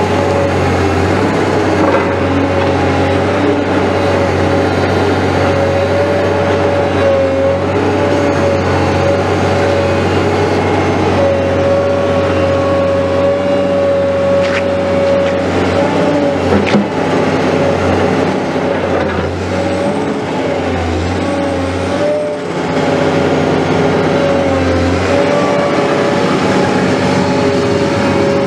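Caterpillar M318D wheeled excavator's diesel engine running as the machine drives slowly past, a steady low drone with a sustained whine over it that wavers slightly in pitch.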